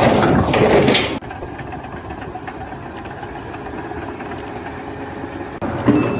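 An engine running steadily, cut off abruptly about a second in and replaced by a quieter steady run, with another sudden change near the end.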